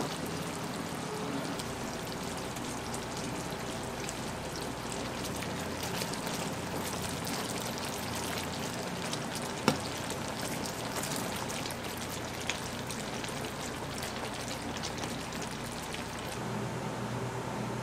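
Caramel mixture bubbling and crackling steadily as it cooks, with a sharp clink about ten seconds in and a softer one a few seconds later.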